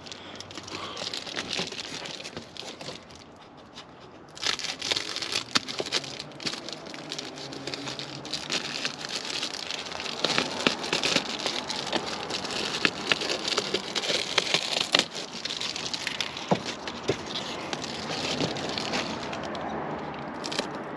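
Reflective foil bubble insulation crinkling and crackling as it is handled and cut with scissors, with many sharp snips and clicks. There is a short quieter lull about three seconds in.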